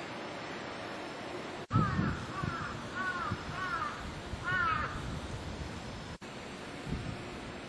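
A crow cawing five times in quick succession, each call arched in pitch, the last one the loudest, over steady background noise.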